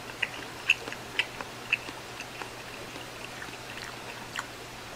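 Chopsticks working instant ramen in a ceramic bowl: scattered light clicks and small wet sounds as the noodles are stirred and lifted from the broth, several in the first two seconds and a few more later, over a low steady hum.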